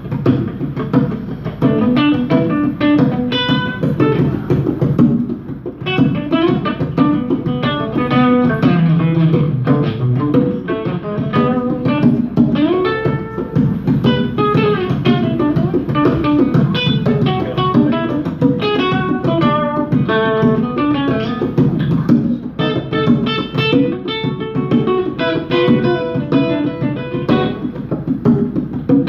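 Instrumental live music: a nylon-string acoustic-electric guitar playing a busy run of picked notes, with congas played by hand underneath.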